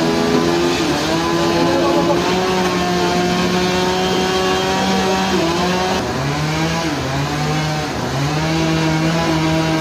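Engine of sawmill heavy machinery running under load with a steady pitch, dipping lower about six seconds in and then climbing back and holding.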